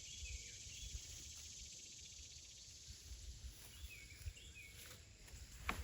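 Faint outdoor ambience: low rumble with two brief clusters of short, high bird chirps, and a single sharp click near the end.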